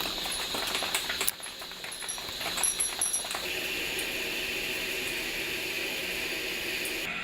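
CNC turning center cutting metal: a hissing cut with small metallic clinks for the first few seconds, then a steady high-pitched whine from about three and a half seconds in.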